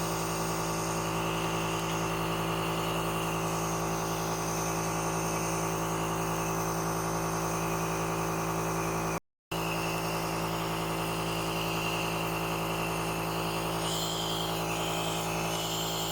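Electric compressor nebulizer running, its motor giving a steady buzzing hum as it pumps out medicine mist. The sound cuts out briefly about nine seconds in.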